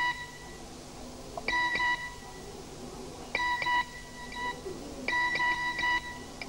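Electronic phone ringtone: a short burst of pulsing beeps that repeats about every two seconds, sounding four times.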